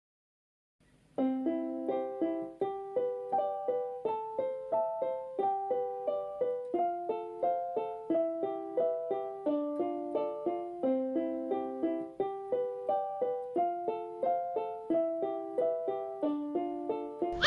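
Gentle background piano melody, a repeating tune of single notes at about two a second, starting after about a second of silence.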